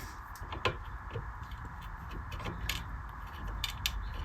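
Scattered small clicks and scrapes of a metal fret puller gripping and working a fret out of a rosewood fretboard, over a steady faint hum.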